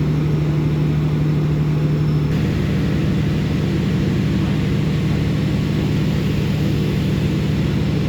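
A steady, loud, low mechanical drone like an engine running, with a constant low hum; its character shifts slightly about two seconds in.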